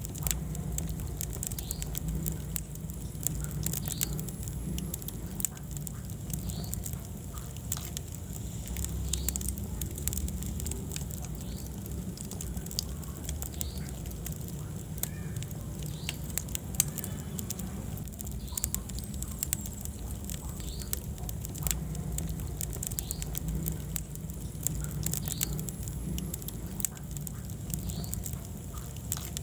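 Wood fire burning in a fireplace: a steady low rumble of flame with frequent sharp crackles and pops scattered throughout.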